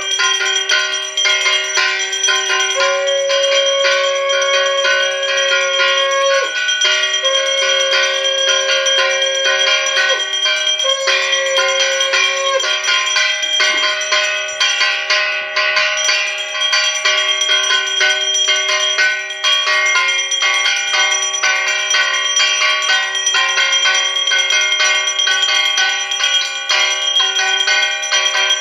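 A brass puja hand bell rung fast and without a break during the aarti, its ringing steady throughout, with a few long held notes of a couple of seconds each sounding over it in the first half.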